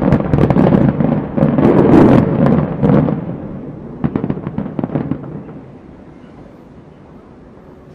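Aerial fireworks exploding in a rapid, overlapping barrage of booms and crackles. The barrage thins to scattered pops about four seconds in, then dies away to a low echoing rumble.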